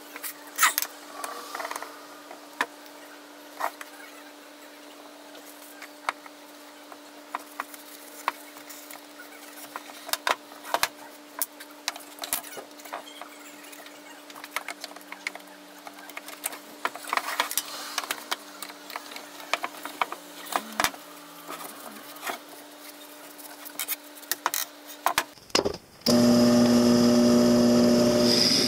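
Scattered light knocks and clicks of wooden parts and clamps being handled on a bench, over a steady low hum. About 26 seconds in, a drill press cuts in loudly with a steady motor whine as its bit bores into a maple board.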